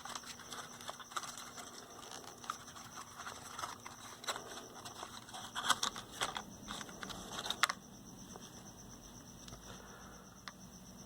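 Scattered clicks, scrapes and small knocks of a cheaply built transistor radio's insides being worked loose from its case by hand, busiest in the first seven or eight seconds, then only an odd click.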